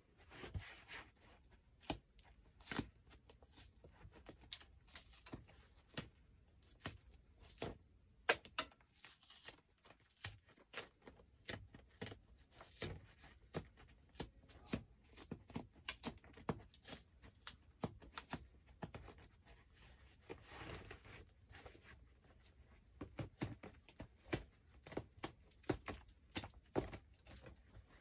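Hands working over a plastic mower seat pan with a plywood insert: scattered small ticks, taps and rubbing as the fingers press along its edges, with a longer scrape lasting about a second, about twenty seconds in.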